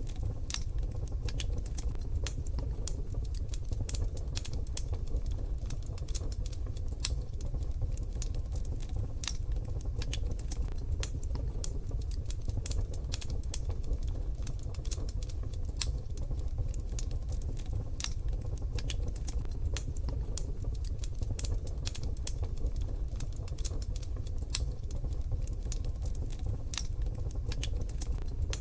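Wood fire crackling in a wood-burning stove: many irregular sharp pops and snaps over a steady low rumble.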